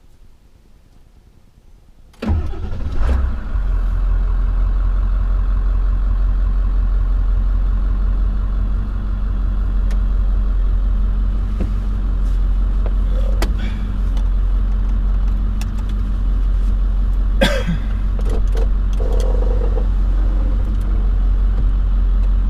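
A pickup truck's engine cranks and catches about two seconds in, then idles steadily with a low rumble, with a few light clicks over it.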